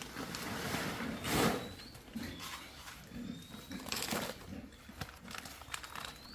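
Pigs making sounds in their pen, the loudest a short harsh burst about a second and a half in and another near four seconds in.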